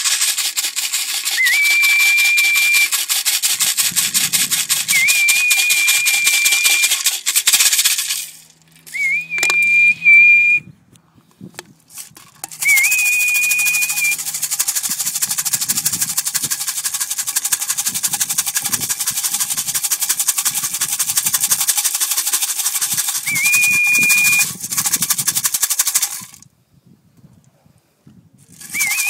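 Fast, steady rattling of grain shaken in a feed can to call racing pigeons in to trap. It is broken twice by short pauses, and about six short whistles rise and then hold one pitch for about a second each.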